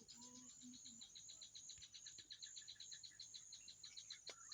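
Faint insect chirping: a fast, even train of short high chirps.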